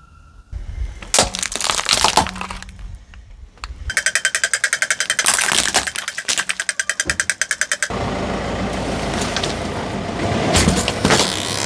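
Toys cracking and breaking as a car runs over them: a few sharp cracks, then a fast, even rattling for a few seconds, then a steady crunching noise with more loud cracks near the end.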